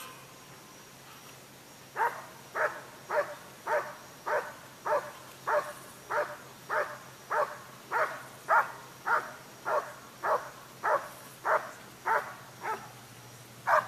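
Working dog barking at the protection helper as it guards him: a steady run of about nineteen evenly spaced barks, nearly two a second, starting about two seconds in and stopping shortly before the end.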